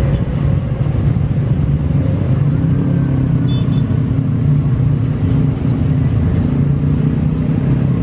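Avro RJ85's four Honeywell LF507 turbofan engines at takeoff power as the jet rolls down the runway and lifts off: a loud, steady low rumble.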